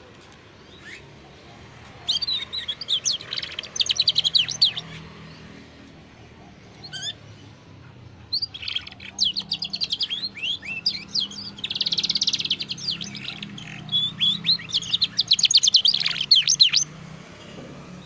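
White loper canary singing in rapid trills and chirping phrases: a short burst about two seconds in, then a longer run of song from about eight and a half seconds in until near the end.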